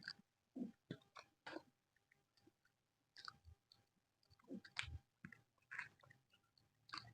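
Close-miked chewing of soft flatbread: irregular short, moist mouth sounds and smacks with quiet gaps between them.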